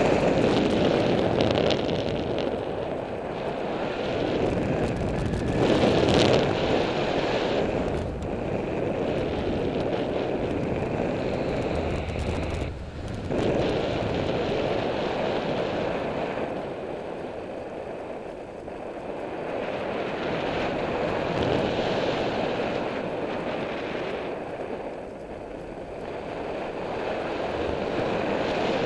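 Wind rushing over a harness-mounted camera's microphone during paraglider flight, a steady roar that swells and eases with the airflow, with a short lull about halfway through.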